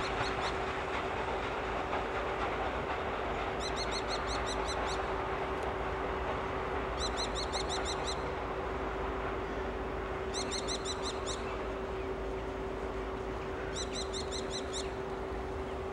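Ol49 steam locomotive and its passenger train rumbling away into the distance, a steady noise slowly fading. A bird sings a short phrase of about eight quick high notes five times, every three to four seconds.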